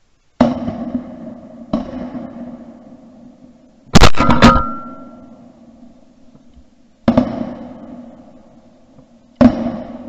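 Shotguns firing: one shot just after the start and another about a second later, a much louder, closer shot about four seconds in followed quickly by two more cracks, then two more shots in the second half. Each shot has a long echoing tail.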